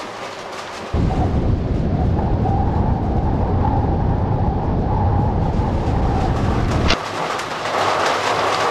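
Deep rumble of thunder that comes in suddenly about a second in and cuts off abruptly near the end with a click.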